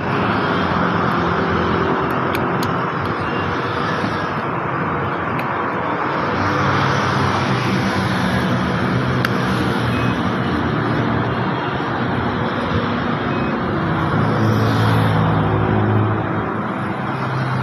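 Steady engine noise with a low hum that swells near the end, over loud outdoor traffic noise, with a few light clicks.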